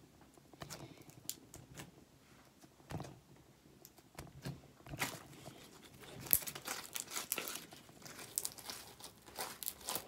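Hands working slime and its plastic packaging, crinkling and crackling. It starts as a few scattered clicks and turns dense and busy about five seconds in.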